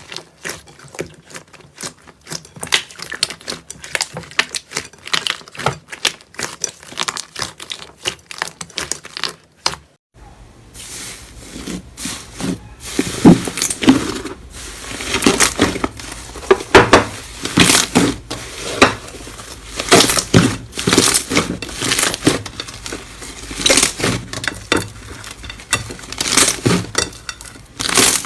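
Slime being squeezed and poked by hand, giving rapid sticky clicks and crackling pops. About ten seconds in, the sound changes to louder, crunchier crackling.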